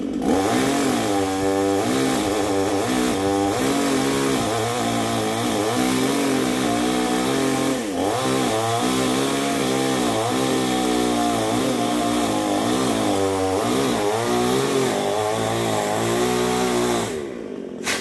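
Chainsaw running and cutting, its engine pitch rising and falling over and over as it bites into the wood; it stops about a second before the end.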